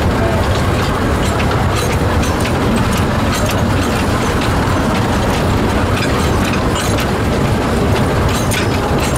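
Small narrow-gauge steam locomotive under way, heard from close behind its cab: a steady running noise with irregular clicks and clanks from the running gear and the wheels on the 610 mm gauge track.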